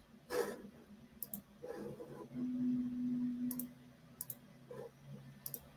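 Quiet room with a few faint, sharp clicks, about four spread through the moment, and a low, steady hum lasting about a second in the middle.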